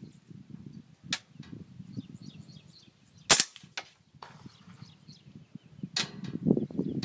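Suppressed .300 Blackout rifle with a Shark Jaws suppressor firing subsonic 208-grain A-Max rounds: a few sharp, muffled cracks a couple of seconds apart, the loudest a little past three seconds in, followed shortly by a smaller click.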